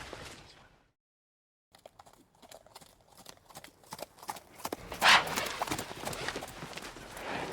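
Bison hooves clopping and thudding on the ground in many irregular strikes, starting after a short silence about a second in, with a louder burst of noise about five seconds in.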